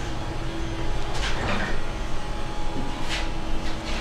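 Steady low hum of room ventilation fans, with two brief rustles about a second in and near the end.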